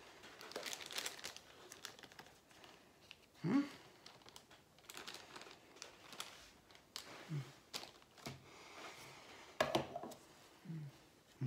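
Clear plastic bag crinkling and rustling as it is handled with metal tongs and gloved hands, with scattered sharp clicks. A few short low hums break in, the loudest about three and a half seconds in, rising in pitch.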